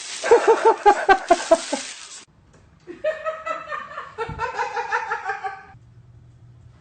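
A person laughing in quick rhythmic bursts, cut off about two seconds in. After a short gap comes a higher, steadier laughing voice lasting about three seconds.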